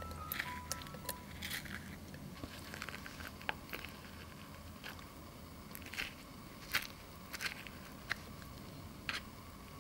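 Metal spoon scraping passion fruit pulp and seeds out of the halved shells into an enamel saucepan: irregular sharp clicks and soft wet squelches.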